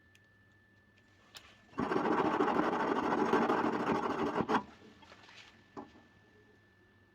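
A small motor-driven machine running with a fast rattling buzz for about three seconds, starting and stopping abruptly.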